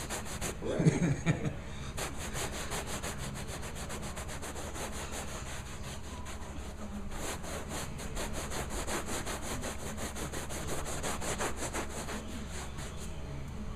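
Hand scrub brush scrubbing plush carpet, its bristles scratching against the pile in quick, steady back-and-forth strokes.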